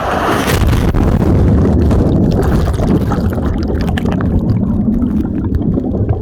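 Loud, churning rush of wave-pool water with a heavy low rumble, as on a microphone close to or buffeted by the water.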